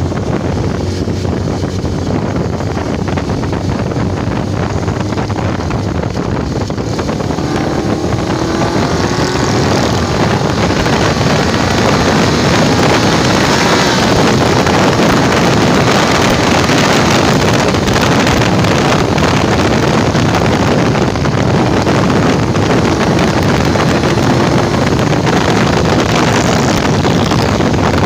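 Suzuki GSX750ES motorcycle's air-cooled inline-four engine running under way, with a steady rush of wind. About a third of the way in, the engine note climbs in pitch as it accelerates and then holds a little louder.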